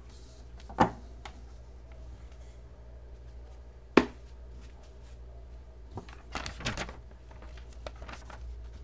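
Handling noise while a folding knife and a sheet of paper are readied for a cutting test: a sharp click about a second in and a louder one about four seconds in, then a stretch of rustling and small clicks near the end, over a low steady hum.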